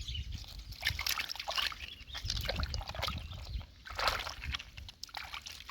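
Hands digging and groping in wet mud and shallow water: irregular squelches, sloshes and small splashes.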